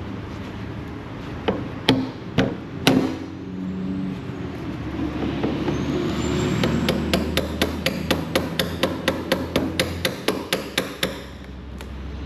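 Hammer striking the metal engine hood of a Cat 308 excavator: a few single blows, then a quick even run of about twenty strikes at roughly four a second, beating the bent-out edge by the gap back into shape. A steady low hum runs underneath.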